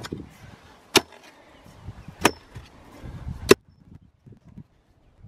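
A steel digging tool striking stones in hard ground at the bottom of a post hole: three sharp strikes about a second and a quarter apart, each with a brief metallic ring, between softer scraping of soil.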